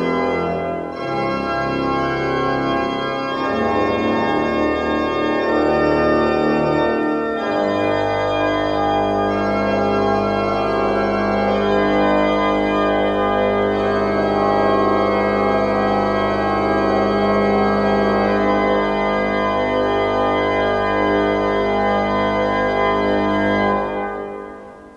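Church organ playing a few changing chords, then holding one long final chord over a deep bass note, which dies away near the end.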